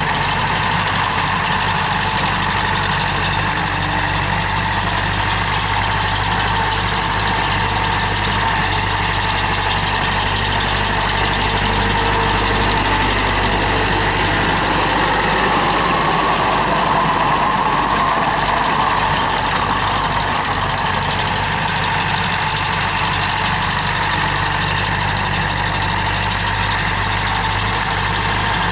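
TAFE 5900 DI tractor's diesel engine running steadily while it pulls a rotary tiller through dry soil.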